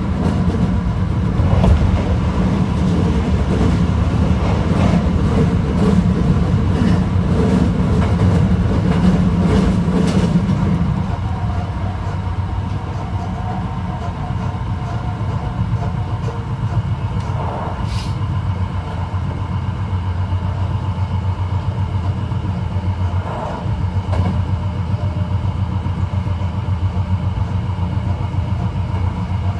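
Running noise of a Hankyu 9300-series electric train with Toyo IGBT-VVVF traction, heard from inside the car at speed: a steady low rumble of wheels on rail with motor hum, easing a little about eleven seconds in, with a couple of brief clicks later on.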